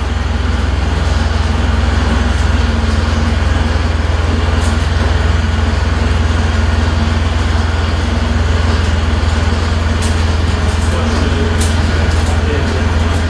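Forklift engine running steadily with a deep, even hum while it carries a heavy CNC machine slowly through a doorway.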